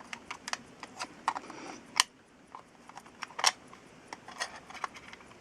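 Light, irregular clicks and taps of watchmaker's tools and small metal watch parts being handled on the bench. The sharpest clicks come about two seconds in and again about three and a half seconds in.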